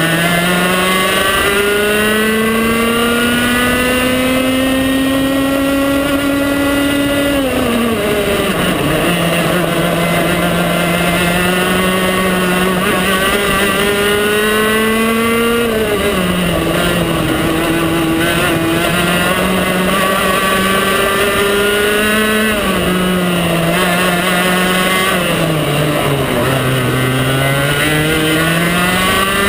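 A TAG Senior kart's 125 cc two-stroke engine heard from on board the kart, lapping a track. Its pitch climbs steadily for several seconds at a time as it accelerates, then drops sharply off the throttle into corners, about four times.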